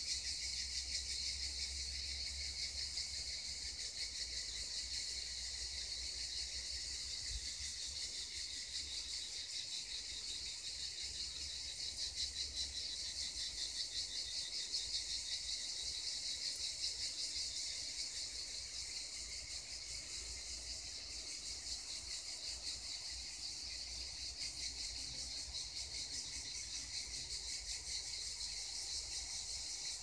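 Cicadas singing in a continuous chorus: a dense, high-pitched buzz with a fine, rapid pulsing texture that holds steady throughout.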